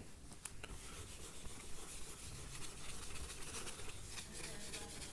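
Faint rubbing and scratching on a dry-erase whiteboard, with a couple of light ticks in the first second.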